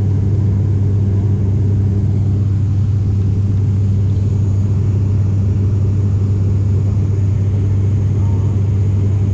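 Steady, loud drone of an airliner's turboprop engines and propellers, heard from inside the passenger cabin: a constant low hum with a rumble beneath and a faint high whine.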